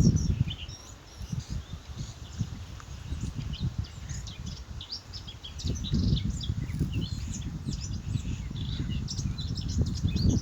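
Small birds chirping and singing, many short calls, over an uneven low rumbling noise that swells again about halfway through.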